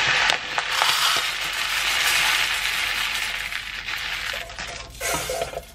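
Dry rice grains pouring from a bag into a plastic measuring cup: a steady rattling hiss that tapers off about five seconds in.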